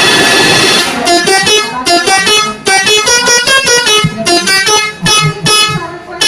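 Multi-tone telolet air horn playing a melody. It opens on a held chord for about a second, then plays a quick run of short, stepped notes, several a second, with brief gaps between phrases.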